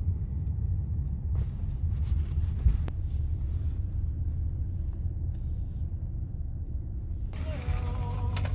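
Steady low rumble of a car heard from inside the cabin, with a few faint ticks in the first half. A voice-like tone comes in near the end.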